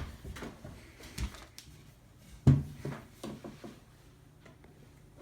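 Scattered knocks and clicks from a laptop being handled. The loudest knock comes about two and a half seconds in, followed by a few quieter taps.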